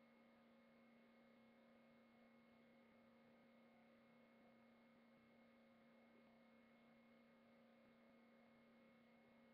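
Near silence: a faint steady electrical hum over low hiss.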